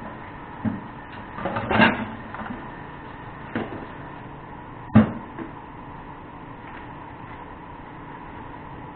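Kitchen clatter: hard objects knocking as they are handled, over a steady background hum. A short run of clatters comes near two seconds in, and the loudest, sharpest knock comes about five seconds in.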